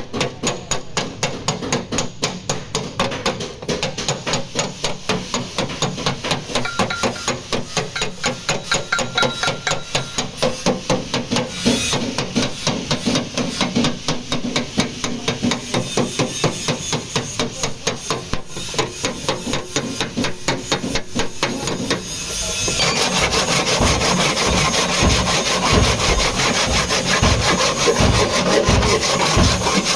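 Rapid, rhythmic rubbing and scraping strokes of hand bodywork on a car's rear quarter panel. About 22 seconds in they grow louder and harsher, with deeper thumps roughly every half second.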